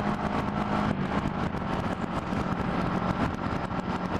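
Motorcycle engine running steadily under way, with a continuous rush of wind noise over the microphone.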